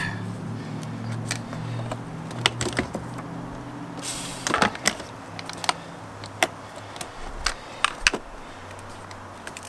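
Irregular sharp clicks and metallic clinks of battery terminal clamps and cables being handled and fitted onto a new car battery, with a low hum in the first half that fades out about halfway.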